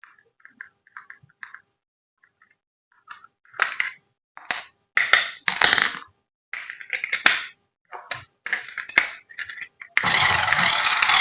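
Packaging handled during a toy unboxing: a run of short crinkling, rustling bursts and clicks, then a louder, even rasp lasting under two seconds near the end.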